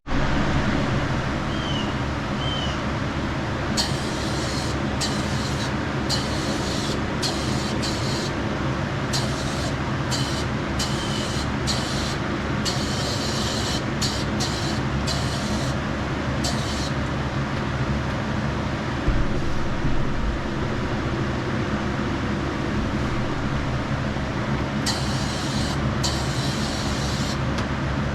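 Powder coating in progress: a steady motor hum with repeated short bursts of air hissing from the powder coat gun, a cluster of them over the first half and another near the end.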